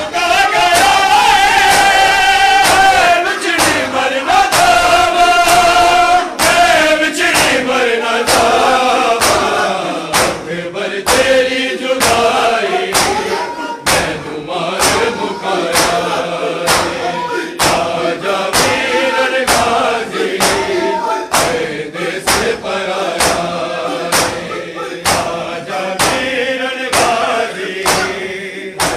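A crowd of men chanting a noha lament in unison, led by one voice, over a steady beat of sharp slaps of hands on bare chests (matam) about one and a half a second.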